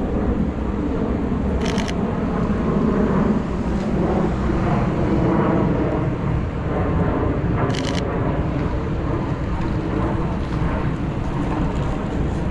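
Steady city street noise of traffic and passers-by, with strong low rumble. Two short bursts of rapid clicking, about two seconds in and again near eight seconds, from a Sony A7 III's shutter firing in quick succession.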